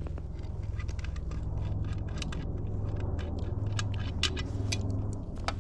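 Scattered small clicks and taps, like things being handled, over a steady low rumble.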